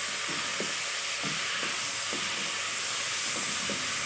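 Lamb and masala sizzling and steaming in a karahi with a little water just added: a steady hiss, with light scrapes and knocks from a wooden spoon stirring the pan.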